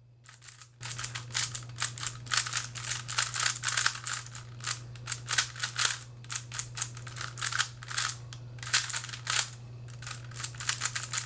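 Giiker Super Cube, a magnetic smart 3x3 speed cube, clacking as its layers are turned fast through a speed solve. The plastic clicks start about a second in and come in dense flurries with short pauses between them.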